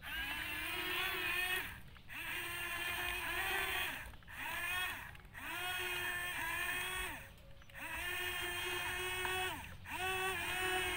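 Electric gear motors of an RC toy excavator whining as the boom, arm and bucket are worked, in about six runs of one to two seconds with short pauses between. Each run rises in pitch as the motor spins up and falls away as it stops.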